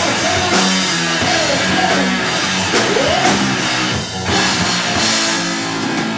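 Live rock band playing loud: distorted electric guitar, bass guitar and a drum kit, with a short dip in the sound about four seconds in.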